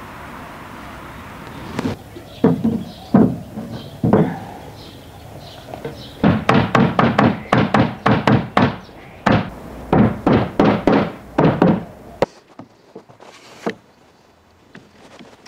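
Hollow wooden thunks as the top board of a solid-wood TV stand is knocked down onto its mortise-and-tenon frame. A few separate blows come first, then a quick run of about a dozen, roughly two a second, which stops suddenly, followed by one more knock.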